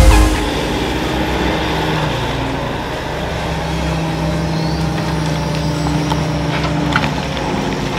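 Hitachi Zaxis 130 tracked excavator working a pile of broken stone: its diesel engine runs steadily under hydraulic load. There is a heavy thump at the start and a few sharp clacks of stone near the end.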